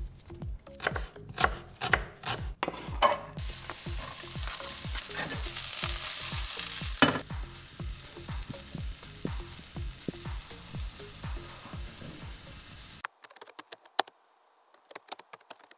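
Cooking sounds: a knife clicking through an onion, then food sizzling loudly in a hot pot, over a steady low thudding beat. About 13 seconds in it all cuts off, leaving a run of sharp clicks.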